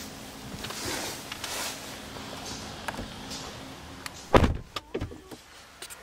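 A small electric motor inside the car hums steadily, then stops. About four seconds in, the car door shuts with a heavy thud, followed by a smaller knock.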